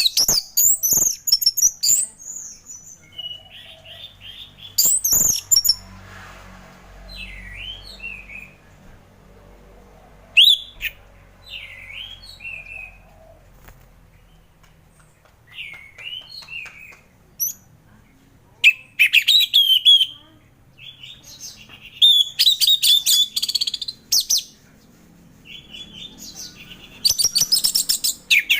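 Orange-headed thrush singing: varied phrases of high, sliding whistles and rapid trilled notes with short pauses between them, several phrases louder and denser than the rest.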